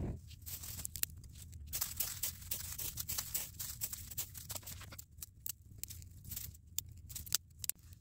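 Dry bird's nest and grass tinder burning, crackling with quick irregular snaps and pops as the flame catches.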